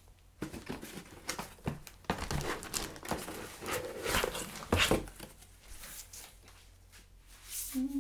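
Packaging being handled during an unboxing: irregular crinkling and rustling of paper and plastic wrapping, with scrapes and light knocks of cardboard.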